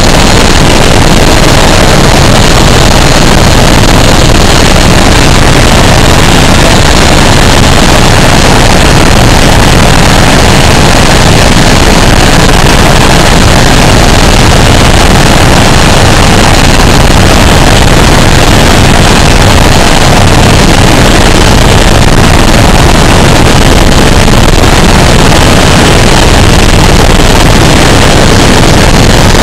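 Helicopter running, its engine and rotor noise a steady, very loud rush with a low hum underneath, near the limit of the recording.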